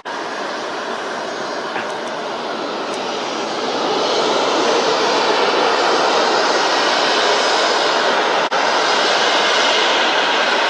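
Jet airliner's engines at takeoff power, a steady roar that grows louder about four seconds in and then holds.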